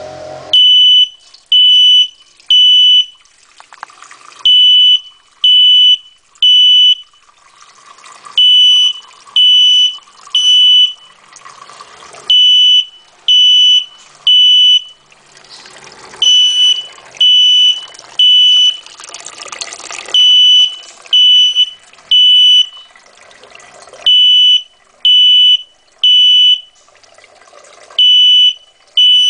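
Fire alarm sounding a loud, high-pitched beep in repeated groups of three, each beep about half a second long, with a short pause after every group, about every four seconds: the temporal-three evacuation pattern.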